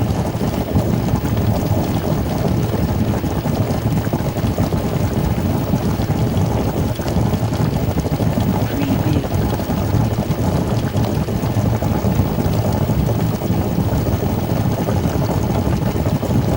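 Food cooking in a pan on a stove: a steady, dense crackling rumble that keeps on without a break, mostly deep in pitch.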